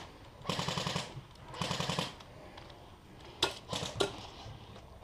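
Airsoft electric LMG firing two short full-auto bursts, then a few single sharp clicks near the end. The shooter says its battery is going dead.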